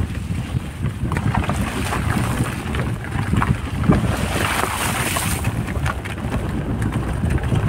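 Wind buffeting the microphone at the open window of a moving car, over the low rumble of the car on the road.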